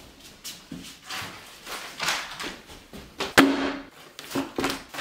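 Papers and a thick binder rustling as they are handled on a table, with one sharp thump about three and a half seconds in.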